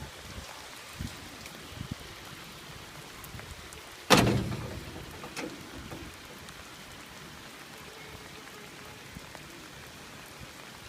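Steady rain falling and pattering on surfaces, with a few light knocks early and one sudden loud crack about four seconds in that dies away over about two seconds.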